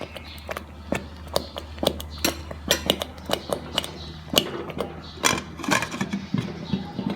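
A spoon knocking and scraping against a cooking pot as a thick rice and mung bean porridge is stirred: irregular sharp clicks and knocks, a few a second.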